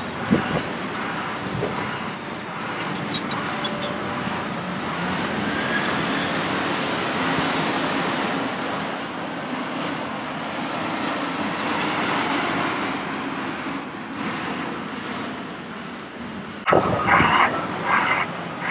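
Hitachi ZX870 excavator's diesel engine working hard with its hydraulics as it digs and slews. There is a sharp knock right at the start as the bucket meets the ground, and loud crunching scrapes near the end as the bucket digs into the spoil.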